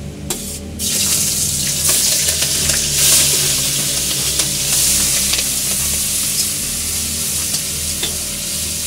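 Prawns sizzling in hot mustard oil in a kadai. The sizzle starts suddenly about a second in, as they hit the oil, and then runs on steady and loud.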